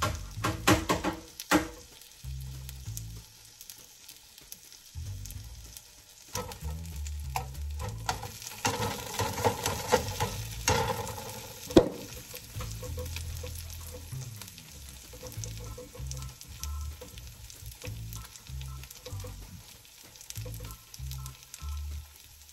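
Food sizzling as it fries in a pan. A utensil knocks and clatters against the pan several times near the start and once sharply about twelve seconds in, and the sizzle swells for a few seconds around the middle.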